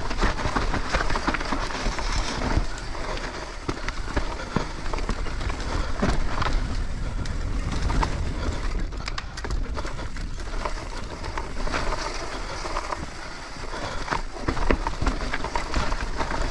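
Trek Slash 7 full-suspension mountain bike descending a steep dirt trail at speed: knobbly tyres rolling and scrabbling over loose dirt, roots and stones, with a constant patter of knocks and rattles from the bike over the bumps. Under it runs a steady low rumble of wind on the microphone.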